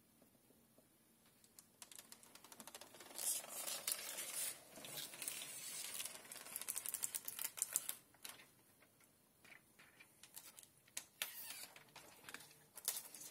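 Window film being trimmed with a knife and handled at its cut edge: faint, fast crackling and ticking clicks, dense for several seconds after a quiet start, then thinning to scattered clicks.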